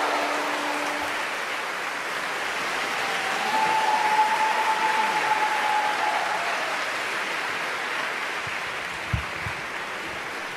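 Audience applauding steadily, swelling about four seconds in and then slowly dying down.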